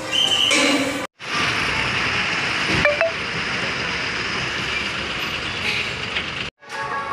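A moment of music, then the steady sound of a bus yard, with a diesel bus engine running, and a short pitched chirp about three seconds in. The music returns near the end.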